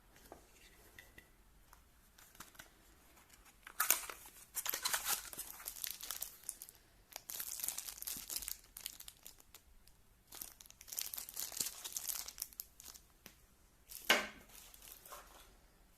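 Packaging being torn open and crinkled by hand, in several stretches of rustling starting about four seconds in, with a louder burst near the end.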